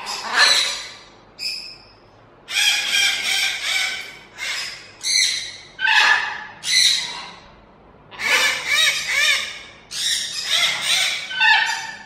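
Pet parrots squawking: a run of loud, harsh calls, some short and some held for a second or more, with brief pauses between them.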